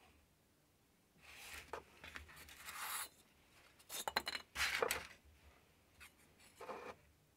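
Hands handling a cardboard box and lifting a steel revolving lathe center out of it: scraping and rubbing of cardboard with a few light clicks, in bursts starting about a second in, again around four to five seconds in, and briefly near the end.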